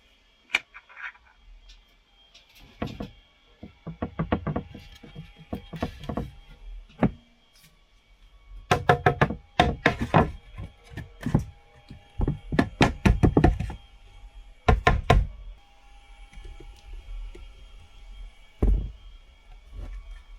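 Hammer knocking on wood in quick runs of strikes, with short pauses between the runs and a single heavier knock near the end.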